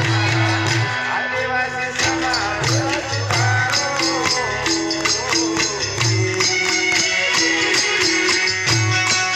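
Folk song: a sung melody that bends in pitch, over steady held bass notes and regular percussion strokes.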